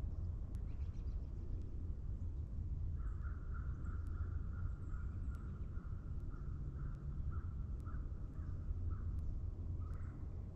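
Morning forest ambience: from about three seconds in, a bird calls in a long run of rapid, harsh repeated notes, carried over a steady low rumble. Faint scattered ticks are heard throughout.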